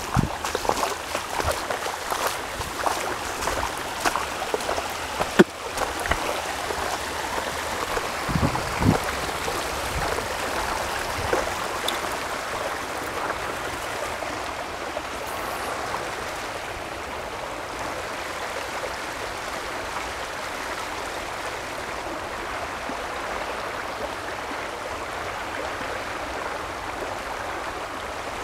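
Creek water running steadily over a shallow rocky riffle. Scattered clicks and knocks over it in the first dozen seconds, one sharper than the rest about five seconds in.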